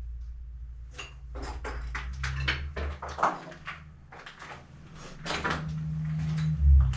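Footsteps crunching and scraping on a gritty, debris-strewn floor: a run of irregular sharp clicks and crunches, over a low rumble that grows louder near the end.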